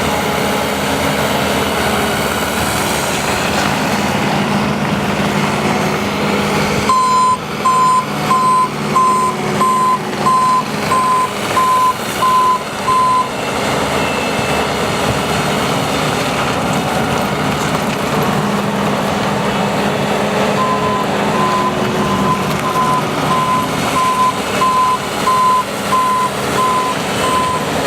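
Bobcat T590 skid steer running with its diesel engine steady, and its back-up alarm beeping about twice a second in two spells, about a quarter of the way in and again over the last quarter, as the machine travels in reverse.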